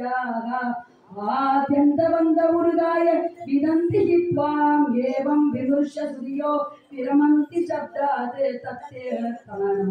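A woman singing verses of a Sanskrit devotional hymn in sung phrases with long held notes, pausing briefly for breath about a second in and again near seven seconds.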